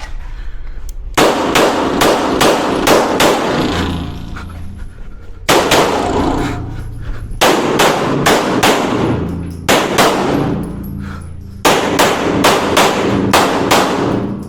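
Beretta 92 9mm pistol fired in six quick strings of shots, three to six shots each about a third of a second apart, with pauses of about a second between strings. Each shot rings on in the echo of an indoor range.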